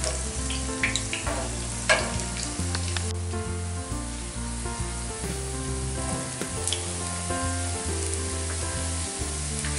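Olive oil sizzling in a frying pan as whole and chopped garlic cloves fry in it, with a few light clicks of a spoon early on. Background music with stepped low notes runs underneath.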